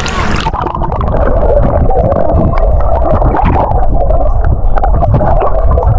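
Underwater sound of shallow sea water: a muffled low rumble with wavering bubbling and gurgling. About half a second in, the open-air hiss cuts off suddenly as the sound goes below the surface.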